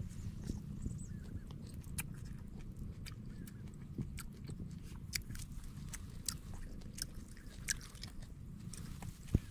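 A person chewing food close to the microphone, with wet mouth smacks and scattered crunchy clicks, over a low steady rumble.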